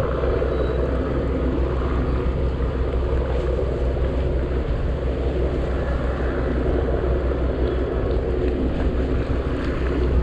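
Boat engine running steadily: an even, low drone.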